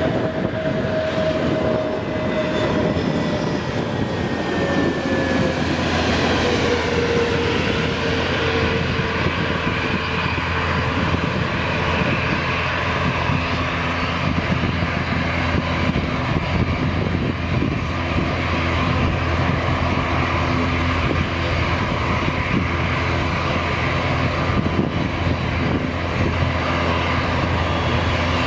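Airbus A321 airliner's jet engines on final approach and landing. A whining engine tone falls in pitch over the first several seconds as the jet passes, then steady jet roar continues as it touches down and rolls out.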